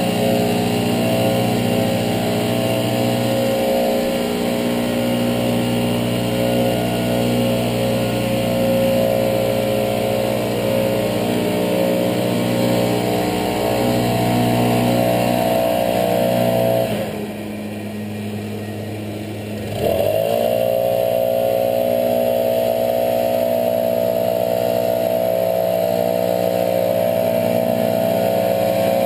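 Backpack leaf blower engine running steadily at high throttle. It is eased off to a lower, quieter speed for about three seconds around the middle, then revved back up to full speed.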